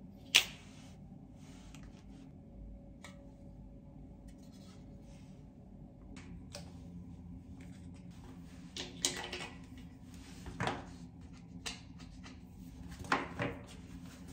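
Small plastic clicks and knocks against a tiled wall: one sharp click about half a second in, then a handful of lighter taps and clicks in the second half as a plastic bathroom rack is handled and fixed to the tiles.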